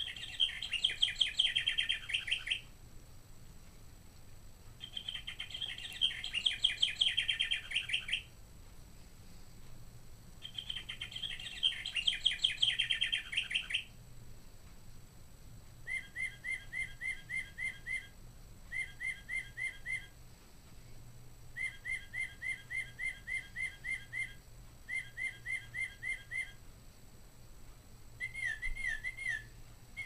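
Mark Feldstein 15th Anniversary Singing Bird Clock playing recorded bird songs through its small speaker. First come three loud, rapid, bubbly trilled songs of about three seconds each. Then come several quieter series of short repeated whistled notes, and slurred whistles begin near the end as the next bird's song starts.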